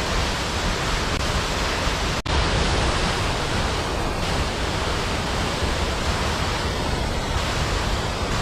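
Waterfall rushing steadily, a dense even roar of falling water, with a split-second break in the sound about two seconds in.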